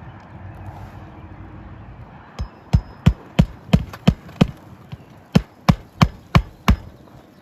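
Hammer blows in two quick runs, about seven sharp strikes at roughly three a second, a short pause, then five more.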